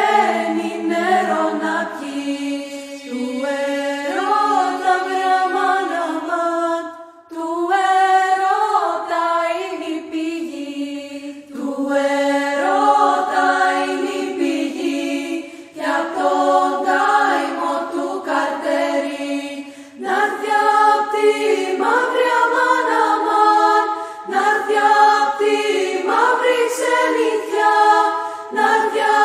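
A cappella group of several voices singing a polyphonic Greek folk song, in phrases of about four seconds with brief breaks between them.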